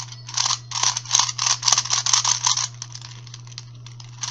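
Plastic gears and pieces of a new 3x3 gear cube clicking and rattling as its faces are turned quickly by hand. The clicks are dense for about three seconds, then thin out to a few softer ones. The cube is still stiff and not yet broken in.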